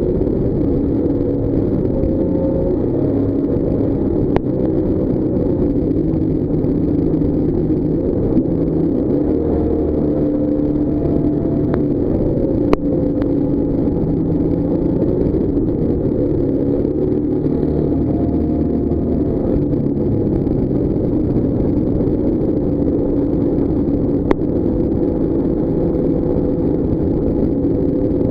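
Jetboat engine running steadily under way, its pitch drifting gently up and down with the throttle, over the rush of the water jet. A few brief sharp clicks stand out, the clearest about halfway through.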